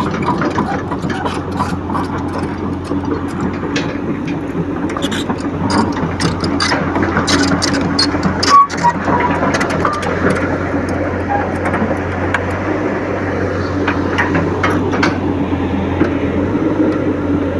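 Caterpillar 312 excavator's diesel engine running steadily, with scattered clicks and knocks and one loud clunk about eight and a half seconds in.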